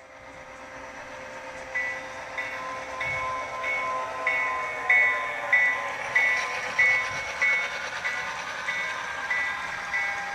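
HO scale GP7's SoundTraxx Tsunami sound decoder playing diesel engine sound through the model's small speaker. From about two seconds in, a locomotive bell rings steadily, about one and a half strokes a second.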